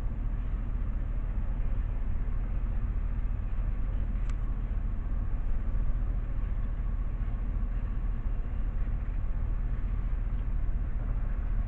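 Freight train cars rolling past, a steady rumble of steel wheels on the rails, with one short high tick about four seconds in.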